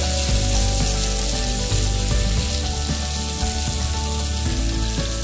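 Green chillies and curry leaves frying in hot oil in a kadai, a steady sizzle, stirred with a wooden spatula.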